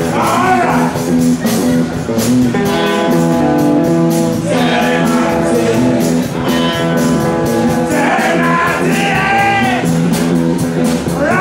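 Live rock band playing through a bar PA: electric guitars with a sung vocal line.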